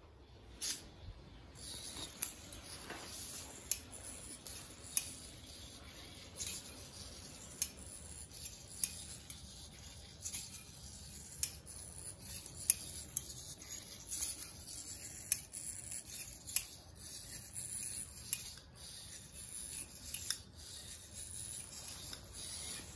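Hobby servo motors of a small 8-servo biped robot whining as it walks, with its feet tapping on a stone tile floor about once every second and a bit.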